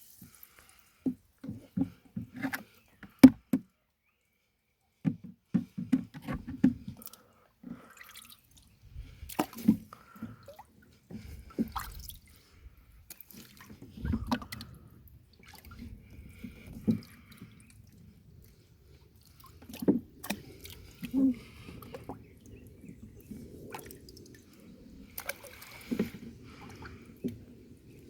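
Shallow water splashing and dripping in irregular bursts, with sharp knocks and handling noises, as a mandarin fish is held in the water and released.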